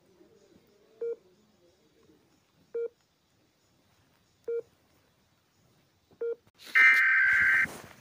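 Emergency alert (EAS-style) alarm tones: four short electronic beeps about 1.7 s apart, then near the end a much louder, harsh buzzing alert tone lasting about a second.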